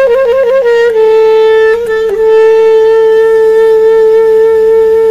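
Music: a solo wind instrument plays quick ornamental turns, then settles about a second in on one long held note, with a faint low drone underneath.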